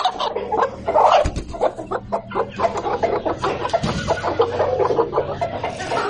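Aseel chickens clucking and squawking in a coop, a dense run of short calls one after another.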